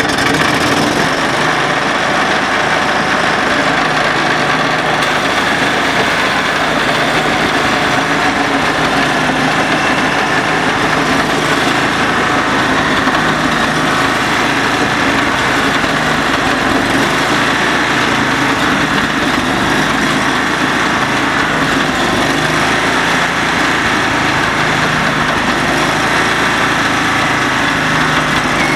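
Morbark G42 SP self-propelled stump grinder's engine running steadily at a constant speed.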